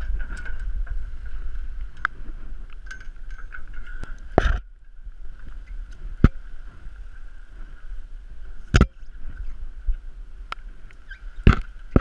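Wind buffeting a head- or chest-mounted GoPro on a climber high on a sailing yacht's mast, with a low rumble that drops away about four and a half seconds in and a faint steady whistle. A handful of sharp knocks come irregularly as the climbing gear and hands bump the mast and lines.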